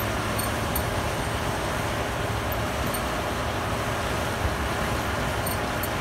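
Claas Lexion 585R combine harvester running steadily while its unloading auger pours rice into a bankout wagon: an even mechanical drone over a low engine hum, with a few faint ticks.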